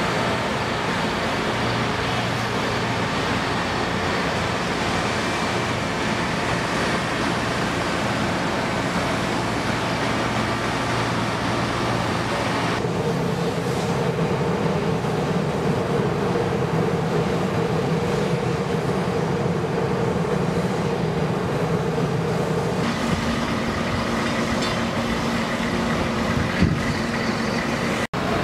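Steady mechanical drone of running engines and machinery, with a low hum. The tone of the drone changes abruptly twice, and a single sharp knock sounds near the end.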